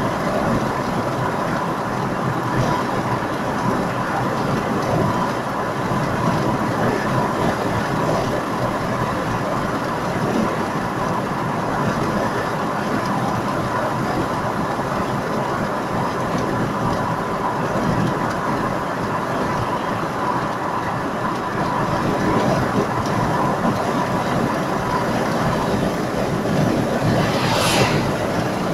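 Road noise inside a car's cabin at motorway speed: steady tyre roar and engine hum, with a faint steady tone running through it. A brief hiss comes near the end.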